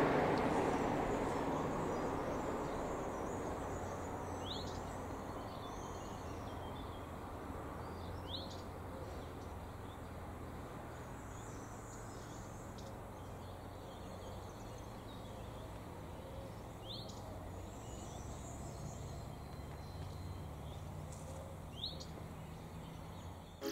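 A passing car's sound fading away over the first few seconds, leaving faint steady outdoor background noise with a low hum. A bird gives a short rising chirp four times, several seconds apart.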